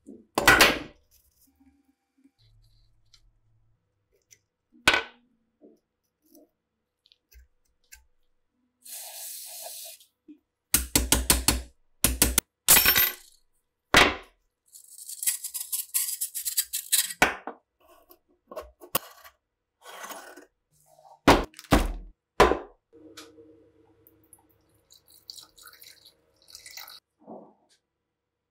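Steel gun parts being handled and worked in a vise: sharp metallic clicks, clinks and taps, some in quick runs, with two short stretches of hissing noise.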